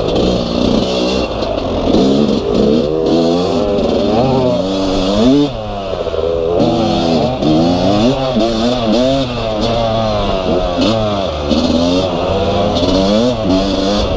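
Yamaha YZ250 two-stroke single-cylinder dirt bike engine under way, revving up and falling back again and again as the throttle is opened and rolled off over trail bumps and turns.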